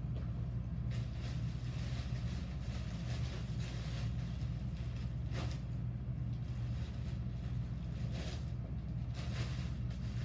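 Steady low electric hum throughout, with the soft rustle of a plastic bag being handled a few times as clay is pulled from it.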